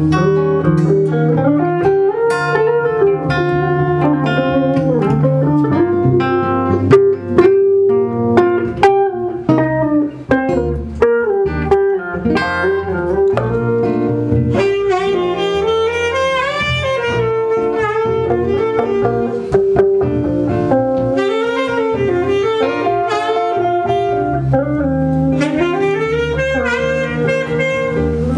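Saxophone playing a wandering melody over electric guitar and bass in an improvised, jazz-like band jam, with sharp plucked guitar notes about a third of the way in.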